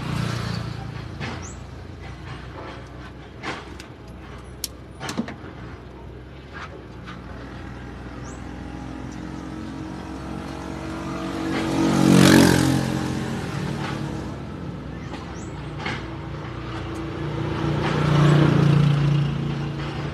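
A vehicle engine running steadily, swelling louder twice, about midway and near the end, with scattered light clicks and taps.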